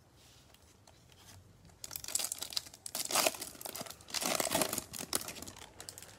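A Topps Chrome baseball card pack's foil wrapper being torn open and crinkled by hand. It comes in several loud crackling bursts starting about two seconds in.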